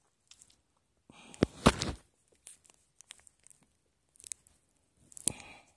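Crinkling and tearing of a food packet's wrapper, in a few short bouts, loudest about a second and a half in.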